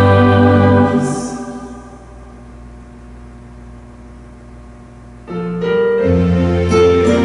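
Church hymn music on keyboard ends on a held chord that dies away about a second in; after a few seconds of quiet room tone, the keyboard starts the introduction to the next hymn about five seconds in.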